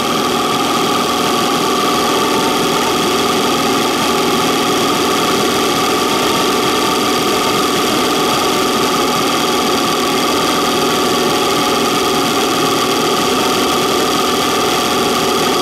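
1976 Mercury 1150 inline-six two-stroke outboard running steadily in a test tank. No water is coming from the tell-tale, which the owner puts down to a failed water jacket leaking water into the cylinders.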